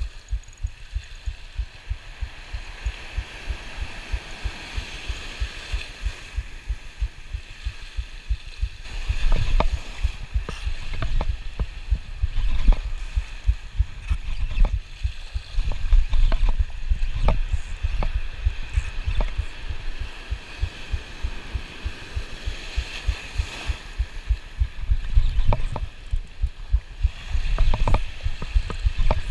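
Spinning reel cranked steadily while fighting a hooked giant trevally, the handle turns giving even low thumps about two to three times a second, with surf washing over the rocks in louder surges.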